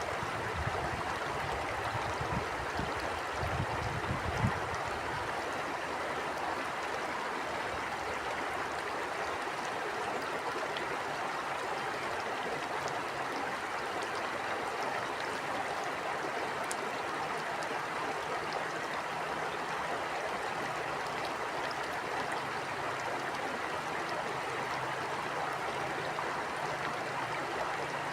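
Steady rush of a flowing stream. Gusts of wind rumble on the microphone for the first four or so seconds, then die away.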